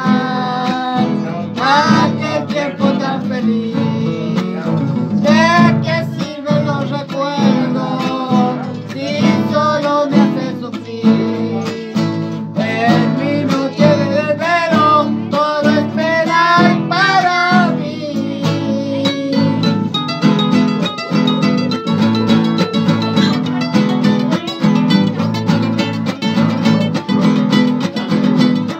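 Two acoustic guitars strum and pick the accompaniment to a tonada while a high young voice, a girl's, sings the melody. About two-thirds of the way through the singing stops and the guitars carry on alone with a busier picked passage.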